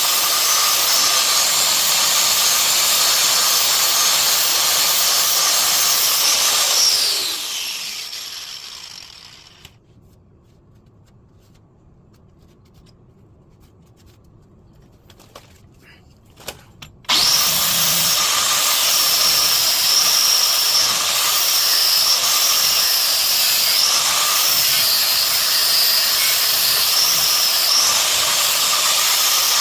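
Power tool cutting through a car's steel frame: a loud steady hiss with a high whine that shifts slightly in pitch. The whine falls and the sound winds down about seven seconds in. After a quiet spell with a few clicks, it starts again abruptly past the halfway point.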